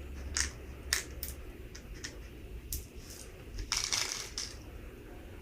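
Light clicks and taps of small plastic toy pieces being handled, a few separate clicks followed by a quick cluster of rattling clicks near the end.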